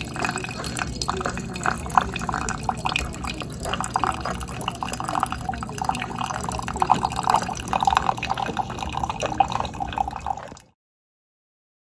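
Keurig K-Slim coffee maker brewing: liquid streaming and splashing into a cup with many small irregular drips, over a steady low hum. It stops abruptly near the end.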